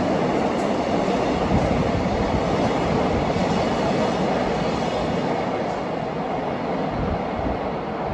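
Freight train's container wagons rolling past on the rails, a steady rumble of wheels on track that slowly fades as the last wagons go by.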